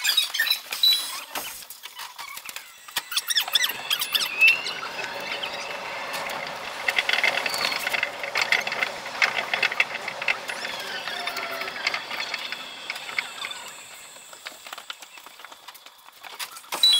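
Chiba Urban Monorail 0 Series suspended train running between stations, its sound sped up fivefold, so the running noise becomes a high squealing, rattling hiss with gliding tones. It builds up after the start and fades as the train slows near the end.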